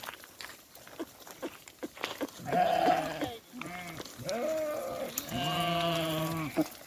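Sheep bleating: a short call about two and a half seconds in, then several more in quick succession, the last one long and drawn out.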